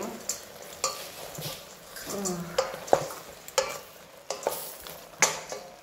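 Kitchen utensils clinking and scraping against cookware, about ten sharp, irregular knocks over a steady low hiss.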